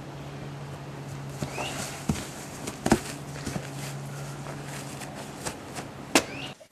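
Scattered knocks and thumps over a steady low hum, the sharpest knock about three seconds in, with two short rising chirps, one near the start and one near the end.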